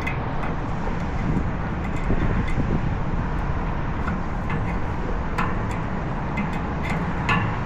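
Steady low rumble with a few light clicks and taps scattered through it.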